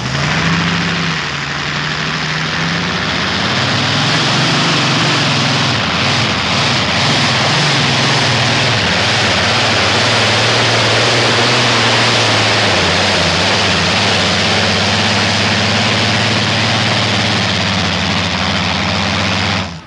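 Modified pulling tractor's engine running at full throttle, loud and steady, as it hauls the weight-transfer sled down the dirt track. The engine note dips about a second in, then climbs back and holds over the next few seconds.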